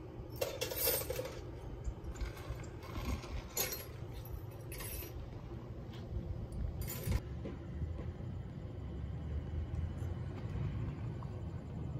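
A few light metallic clinks and jangles, scattered over the first seven seconds or so, above a low steady hum.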